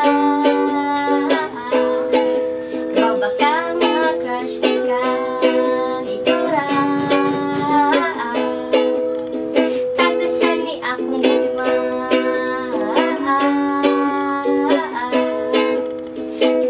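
Ukulele strummed in a steady rhythm, chords changing every second or two, with a small-room echo.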